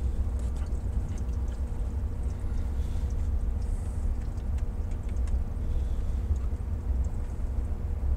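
Steady low electrical hum with faint scattered ticks from a Zenith vacuum-tube AM clock radio warming up on a variac at about 50 volts.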